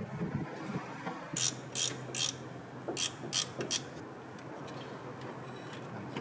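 Socket ratchet clicking in six short bursts, with one short burst every half-second or so between about a second and a half and four seconds in, as it works a flange bolt on a front propeller shaft.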